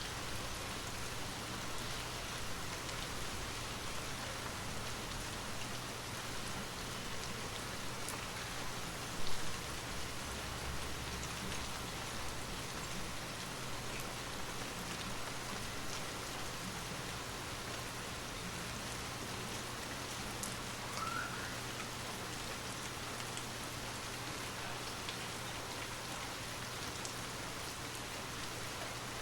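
Steady rain falling. There is a brief louder sound about nine seconds in.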